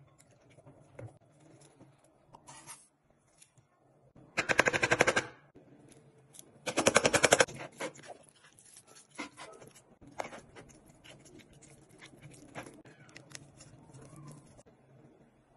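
Two loud bursts of rapid, even rattling clicks, each about a second long, as dry seasoning is dispensed from a spice container over raw chicken pieces in a plastic bowl. Small clicks and taps follow.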